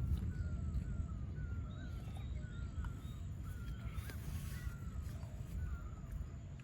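Low rolling rumble of thunder slowly fading, with a bird calling over it in short repeated notes, about two a second. A brief rustling hiss comes about four seconds in.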